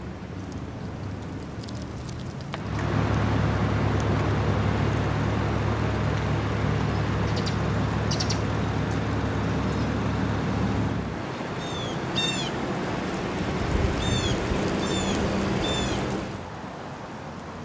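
A steady low mechanical hum with a rushing noise starts about three seconds in and stops near the end, shifting to a higher hum about halfway through. A bird gives several short falling chirps in the later part.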